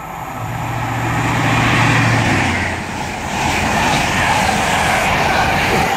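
High Speed Train (InterCity 125) passing through at speed. The leading Class 43 power car's diesel engine hums steadily as it approaches and goes by, then the coaches rush past with a steady loud roar of wheels and air.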